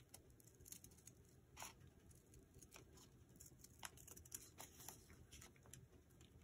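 Faint, irregular snips of scissors cutting a petal shape through paper folded three times.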